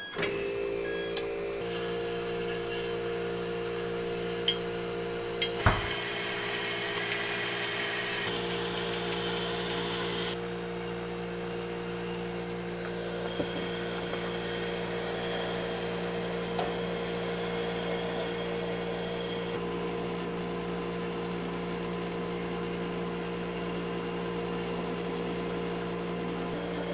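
Thread-bingsu shaved-ice machine running, its motor turning a drum of frozen green-tea ice against the blade and the plate beneath: a steady mechanical hum that starts at once, with a scraping hiss through the first ten seconds and a few sharp knocks about five seconds in.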